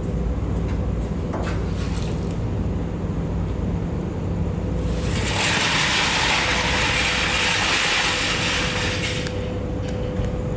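Steady low machinery hum with a faint constant tone. About five seconds in, a loud hiss starts and runs for about four seconds before it stops.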